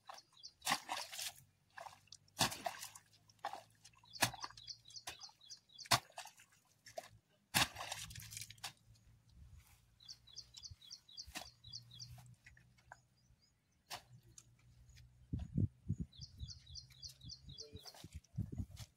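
Wooden paddle-shaped spades being driven and worked into wet, muddy soil, giving irregular squelches and knocks. A bird calls in short quick runs of chirps, three times.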